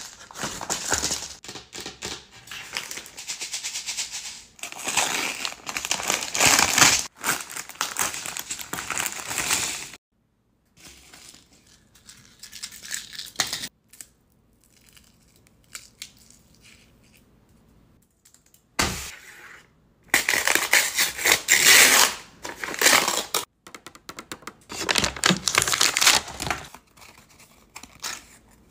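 Close-up paper handling: cut-out paper pieces rustling, crinkling and tearing. About a third of the way in it cuts to a quieter stretch of light clicks and taps from small plastic capsule halves being handled, then back to paper sheets rustling loudly.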